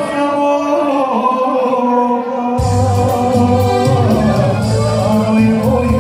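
Live music with singing over held backing chords; bass and a beat come in about two and a half seconds in.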